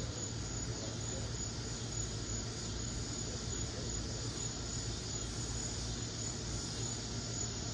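Steady background hiss with a faint low hum underneath, no distinct events.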